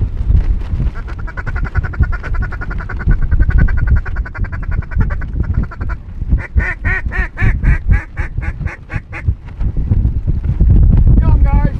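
Duck quacking: a fast chattering run of short calls, then a string of about a dozen loud, evenly spaced quacks, with a short falling call near the end. A low rumble lies underneath.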